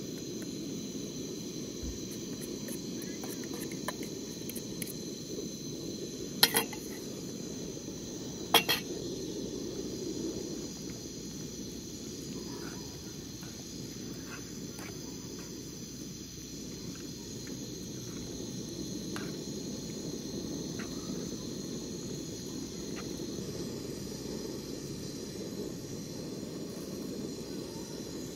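A steady, high insect chorus over a low, even background haze. A metal fork clinks sharply against a metal bowl twice, about six and a half and eight and a half seconds in. Fainter light ticks follow as the spaghetti is tossed.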